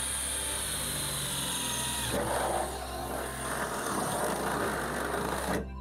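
Stanley FatMax 18V cordless combi drill running with a steady high whine, then turning rougher about two seconds in as it bores a pilot hole through the van's sheet-metal body panel. It stops suddenly near the end.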